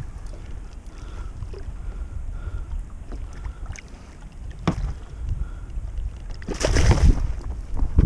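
Wind buffeting the microphone over water lapping against a kayak hull, with a sharp knock about halfway through and a louder burst of noise about two-thirds of the way in.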